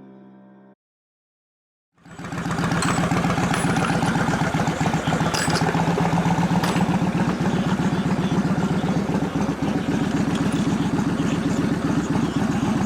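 Yamaha Warrior XV1700's V-twin engine running steadily with a rapid, even pulsing, starting about two seconds in after background music ends and a brief silence.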